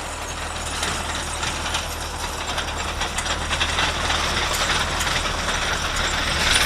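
Strong wind buffeting the microphone: a steady rushing hiss over a constant low rumble, with faint scattered ticks.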